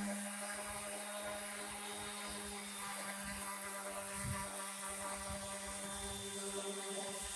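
A power tool's motor running steadily: a constant low hum with a high hiss above it.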